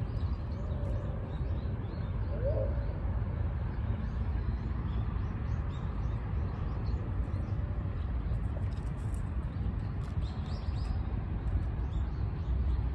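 Outdoor ambience: a steady low rumble with small high bird chirps scattered throughout, and one short lower call about two and a half seconds in.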